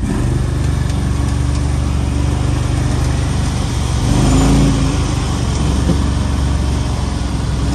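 Argo amphibious ATV engine running steadily as the vehicle drives over rough ground. It swells briefly about halfway through.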